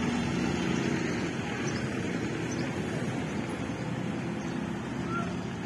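Street traffic: cars driving past with their engines running, over a steady road rumble.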